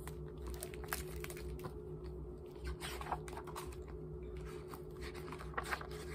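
Pages of a large picture book being opened and turned by hand: scattered papery rustles and light taps, over a steady low hum.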